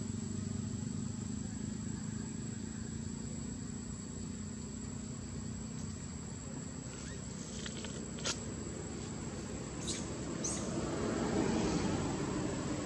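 Steady low background rumble with a thin, constant high whine over it; a few sharp clicks come in the middle, and the rumble grows louder near the end.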